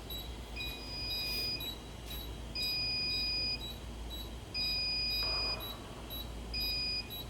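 Fire alarm panel trouble sounders beeping for an active RF emitting fail alarm: a long beep of about a second repeats every two seconds, with short high pips about twice a second over it. A low steady hum lies underneath.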